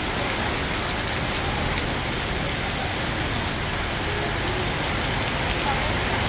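Steady, even hiss of background noise, like rain, with faint distant voices now and then.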